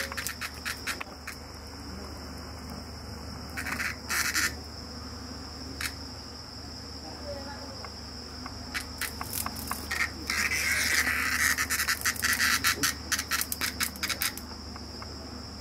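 Cicada giving raspy distress buzzes in short bursts as the cat paws at it, with a longer, louder buzz about ten seconds in. A steady high insect trill runs underneath.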